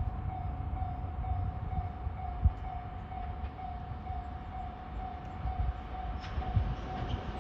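Japanese electronic level-crossing alarm ringing in a fast, even pulse of one tone, over the low rumble of a train at the crossing. A few sharp thumps, the loudest about two and a half seconds in.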